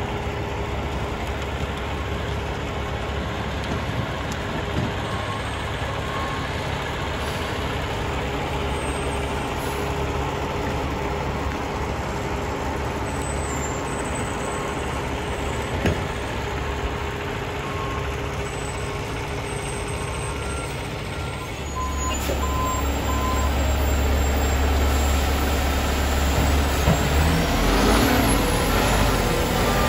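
Heavy diesel trucks and paving machines running steadily on a road-resurfacing site. A little over two-thirds of the way in, the rumble becomes louder and deeper, from a dump truck unloading into an asphalt paver.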